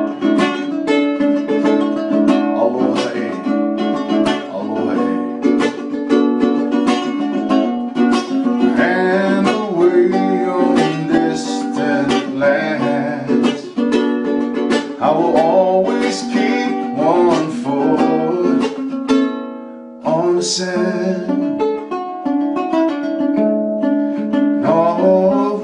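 Ukulele played without vocals, strummed chords and plucked notes, stopping for a moment about twenty seconds in before the playing picks up again.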